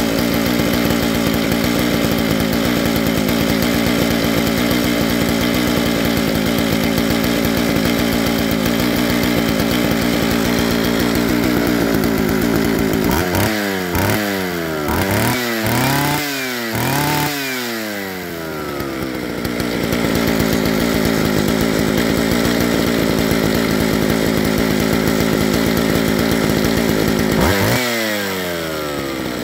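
Homelite 750 vintage two-stroke chainsaw idling steadily, then blipped on the throttle about four times in quick succession about halfway through, each rev rising and falling back to idle. One more quick rev comes near the end.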